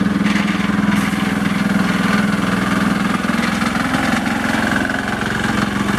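Small engine of a ride-on miniature railway locomotive running steadily at low revs, with an even pulsing hum.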